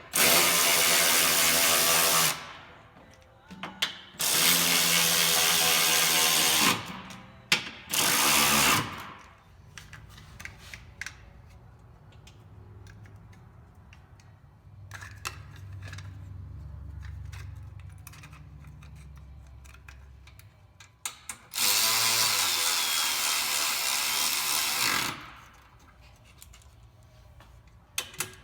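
Cordless power tool motor running in four short bursts, three in the first nine seconds and one near the end, each a steady whirring lasting one to three seconds.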